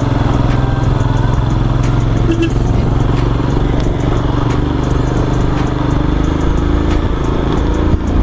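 Royal Enfield Himalayan's single-cylinder engine running steadily as the motorcycle rides along, with wind noise over it.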